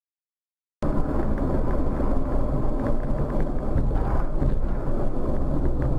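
Silence, then about a second in, the steady engine and road noise of a car on the move begins and runs on evenly.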